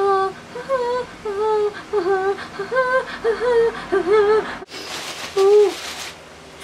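A young woman's voice making a string of short wordless sung or hummed notes, about two to three a second, each wavering up and down in pitch. They break off about four and a half seconds in, and one more note follows.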